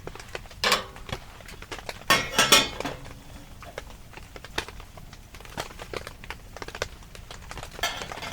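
Metal cookware and utensils clinking and clattering in three short bouts, the longest about two seconds in, over many faint scattered ticks.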